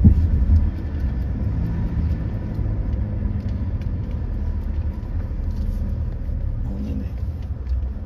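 Car cabin noise while driving: a steady low rumble of engine and tyres on the road.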